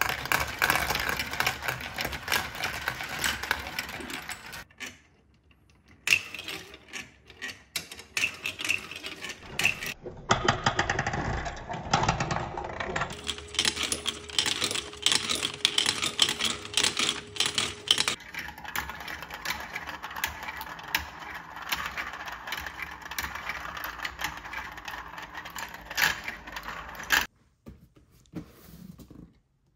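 Plastic marbles rolling, rattling and clicking through a plastic toy marble run (VTech Marble Rush), heard in a string of short clips with abrupt cuts; at the start a hand-cranked tumbler drum turns with marbles tumbling inside. The clicking drops away about two seconds before the end.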